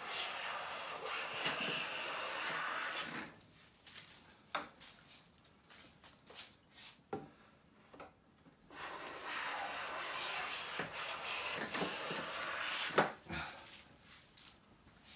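Siegley StS #7 bench plane cutting along a pine board: a steady shearing cut for about three seconds, then a few light knocks, then a second cut of about four seconds from about nine seconds in, ending with a sharp knock.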